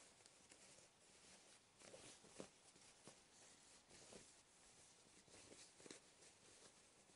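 Near silence with a few faint, soft rustles of cotton fabric being handled as a sewn fabric bag is turned right side out.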